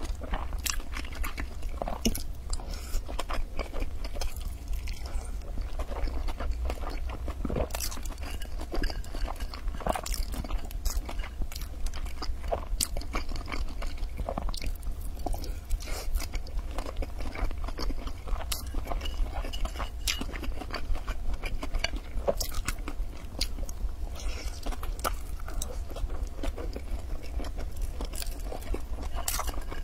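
A person chewing and biting food close to the microphone, with irregular wet clicks and mouth smacks, over a steady low hum.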